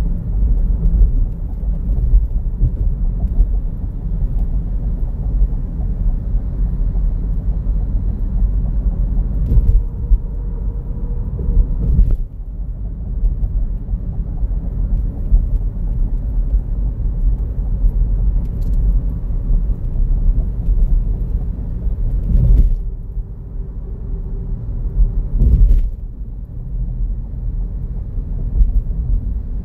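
Car travelling at highway speed: a steady low road and wind rumble, with a few brief knocks, the strongest about three-quarters of the way through.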